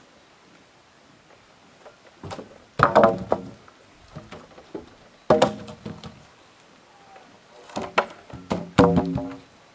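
Timber poles knocking against each other and against a wooden pack saddle as they are loaded onto a pack animal: clusters of hollow wooden knocks with a short ringing after each, the loudest a little before three seconds in and again near the end.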